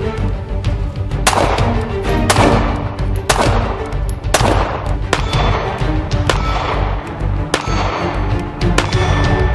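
.380 ACP pistols fired one shot at a time, roughly once a second, each sharp crack trailing off briefly. Background music with a heavy bass plays under the shots.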